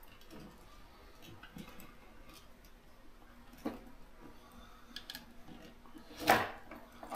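Light plastic clicks and ticks as a fuel pump assembly is worked up out of its tank opening, with a sharper click midway and a louder short knock near the end.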